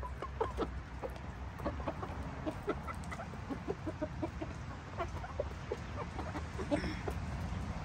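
A flock of Asil chickens clucking, a steady stream of short clucks from several birds at once, over a steady low rumble.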